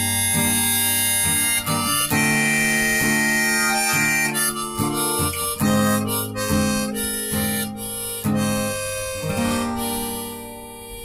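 Harmonica playing a melody of held notes over acoustic guitar, the music fading away near the end.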